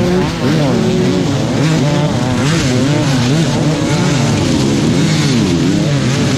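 Several motocross bikes racing at once, their engines revving up and down through the gears. The sound is loud and continuous, with overlapping engine notes rising and falling.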